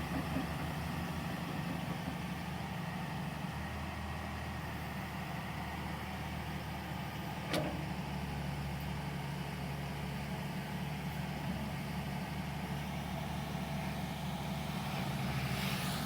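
Tata Hitachi 200 excavator's diesel engine running steadily, with a single sharp clank about halfway through.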